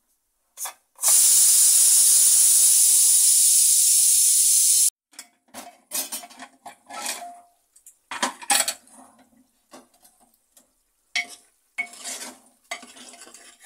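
Aluminium pressure cooker letting off steam: a loud, steady hiss for about four seconds that cuts off suddenly. Then scattered metal clanks and scraping as the lid is worked off and a spoon stirs the cooked vegetables in the pot.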